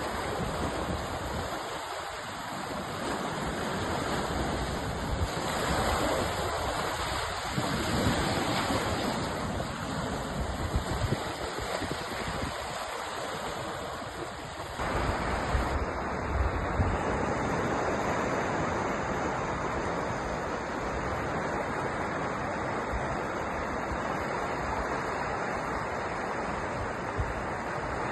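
Ocean surf: a continuous wash of waves breaking and running up the shore, swelling and easing. About 15 seconds in the sound shifts abruptly, as at a join between recordings.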